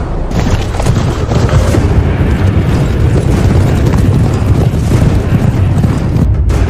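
Loud, continuous low rumbling with repeated booms: dramatic battle sound effects.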